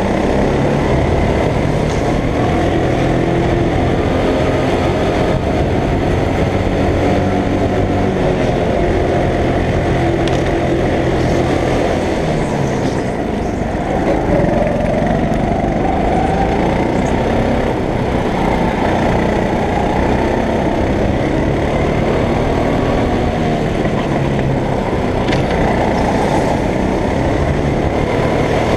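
Rental go-kart engine running hard through a lap, its pitch climbing on each straight and dropping into each corner, over and over.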